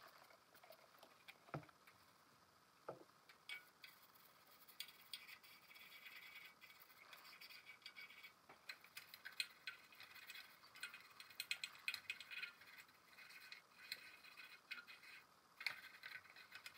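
Old toothbrush scrubbing the painted metal top plate of a jukebox record changer with degreaser: a faint, rapid, scratchy scraping in quick strokes, after two short clicks in the first few seconds.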